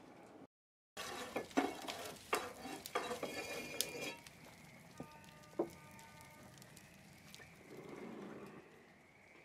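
Wood burning in the firebox of a wood-fired train kiln, crackling and popping. The crackles come thick and fast for about three seconds, then thin out to a few scattered pops.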